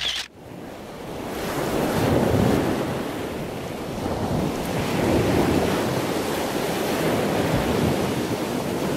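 Sea surf washing onto the shore in slow swells every few seconds, with wind buffeting the microphone. It fades in over the first couple of seconds.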